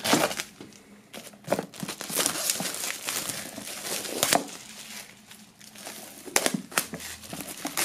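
Thin clear plastic shrink-wrap being pulled and peeled off a cardboard box, crinkling and crackling irregularly, with a quieter spell just past the middle.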